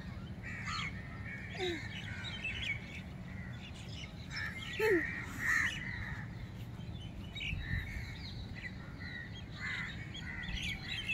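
Crows cawing with other birds chirping around them, a scatter of short calls that is busiest about five seconds in.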